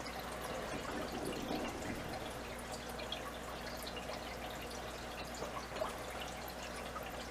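Steady trickling of aquarium water, with many small drips and splashes over a low steady hum.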